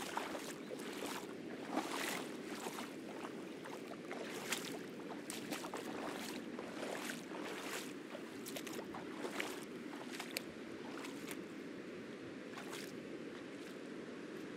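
Ocean surf on the reef making a steady wash, with the walker's footsteps on the wet rock and tide pools of a low-tide reef flat: short irregular crunches and splashes, one or two a second, thinning out near the end.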